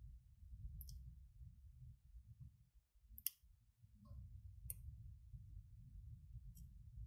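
Faint handling of paper and craft supplies on a work table: a low, muffled rustle with four sharp clicks, the loudest a little past the middle.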